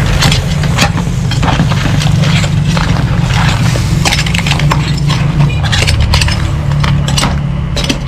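Metal spatula and ladle clinking and scraping against a metal wok as crabs and corn are tossed in sauce, in many short irregular clicks. A steady low rumble runs underneath.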